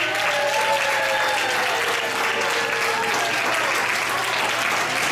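Audience applauding, with a few held tones that fade out about three seconds in.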